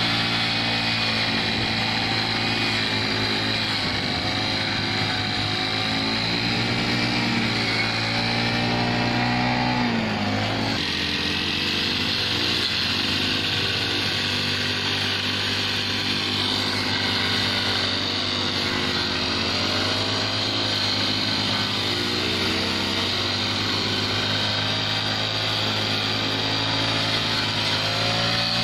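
Small four-stroke engine of a Takyo TK-GX35 wheeled push brush cutter running at high speed while cutting tall grass, its pitch wavering with the load and sagging briefly about ten seconds in.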